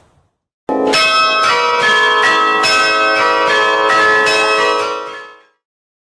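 Bells ringing in a quick, loud peal, many overlapping tones struck in rapid succession, starting abruptly about a second in and fading out near the end.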